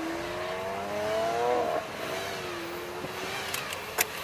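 A car engine accelerating, its pitch rising steadily for about two seconds, then dropping abruptly at a gear change and running on more evenly. A short sharp click near the end.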